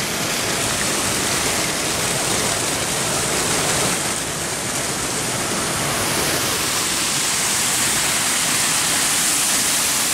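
Small waterfall: water pouring over a flat stone ledge and splashing over rocks into a pool, a steady rushing with a slight dip about four seconds in.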